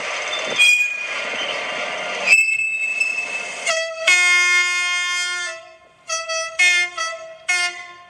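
Model locomotive's sound decoder: running noise with a high squealing tone, then the horn sounding one long blast followed by three short ones.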